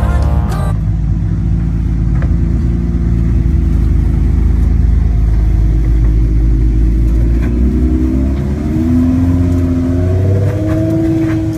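Rock-crawling Jeep's engine running with a steady low rumble, then revving in rising and falling pulls from about eight seconds in.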